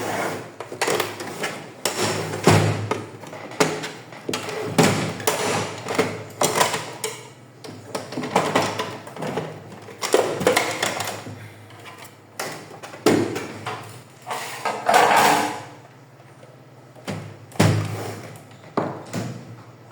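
Plastic side covers of an HP LaserJet M1132 printer being pried off their snap-fit clips: a string of irregular plastic clicks, knocks and scrapes.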